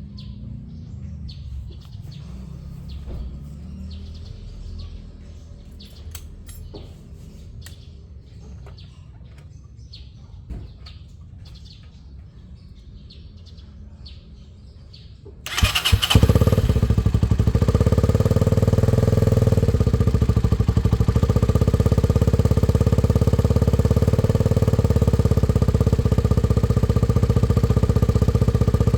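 Faint background with scattered clicks and bird chirps, then about halfway through the 1987 Honda CBX125F's 124 cc air-cooled single-cylinder RFVC DOHC four-stroke engine starts with a brief burst and runs steadily on a cold start.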